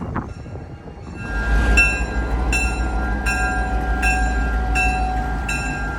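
Diesel locomotive's engine rumbling low as it gets under way about a second in, with its bell ringing steadily, a strike about every three-quarters of a second.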